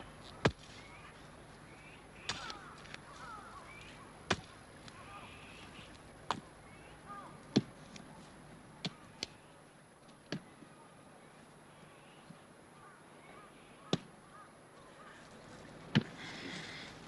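Sharp chopping strikes of a long-handled hoe biting into the ground, one about every two seconds, with an irregular gap in the middle.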